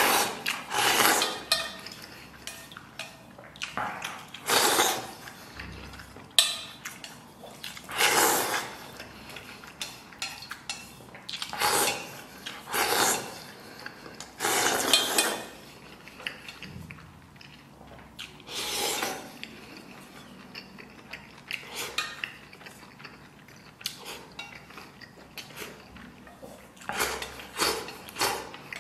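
Slurping and shovelling soup with bits of noodle and pork from the rim of a metal bowl with chopsticks, in short bursts every few seconds. Wooden chopsticks click and scrape against the bowl between them.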